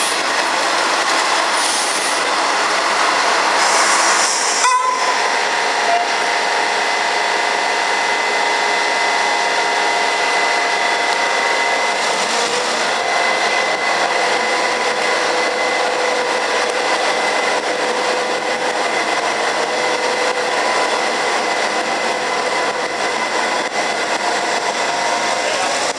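For the first few seconds a V/Line Sprinter diesel railcar runs past over the pointwork with rushing wheel and rail noise. After a sudden cut, a V/Line P class diesel locomotive stands at the platform with its engine running, a steady whine with several held tones.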